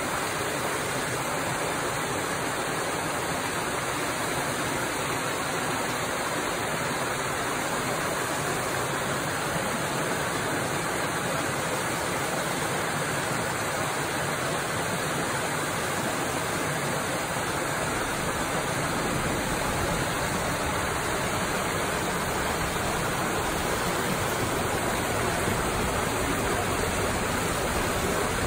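Muddy rain floodwater rushing down a small rocky cascade into a pool: a steady, even rush of water.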